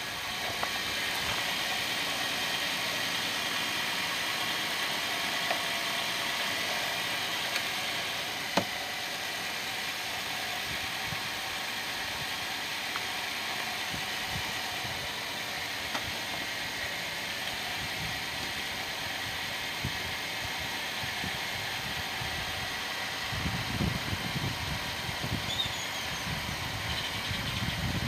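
Hyundai Santa Fe's engine idling steadily, running on a newly fitted battery, with a sharp click about a third of the way in.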